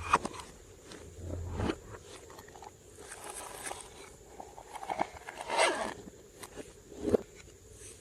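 Slime being worked by hand, squished and stretched, giving irregular sticky crackles and small pops.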